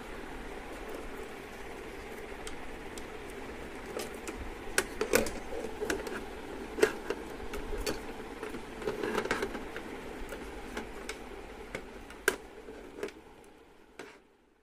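Scattered sharp clicks and knocks of hard plastic as the printer's black side cover is handled and pressed into place, over a steady background noise. The sound fades out at the very end.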